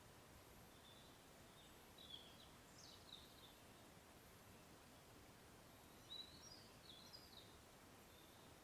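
Faint high, thin whistles of a hazel grouse singing its spring song in answer to a decoy call: two short whistled phrases, one starting about a second in and another about six seconds in, each a few high notes with a falling slide.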